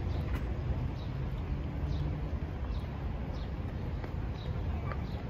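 Outdoor park ambience: small birds chirping in short, falling notes a few times a second over a steady low rumble.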